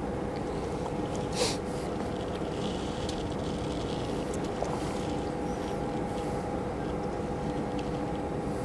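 A steady machine hum with two held tones under a constant rushing noise, and one short hiss about a second and a half in.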